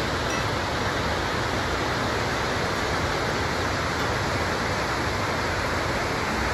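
Water pouring over a concrete dam spillway into the river below: a steady rush of falling water.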